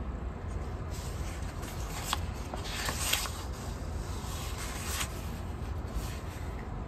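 Paper sticker sheets rustling and sliding against each other as they are handled, busiest about two to three seconds in and again near five seconds. A steady low hum runs underneath.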